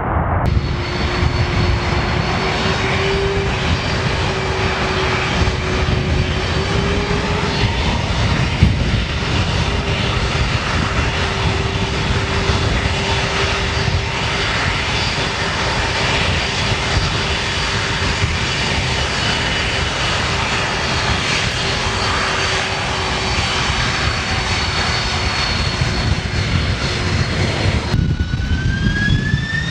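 Boeing 747 jet engines running loud and steady, a constant rush with a steady whine over it. Near the end a whine rises in pitch.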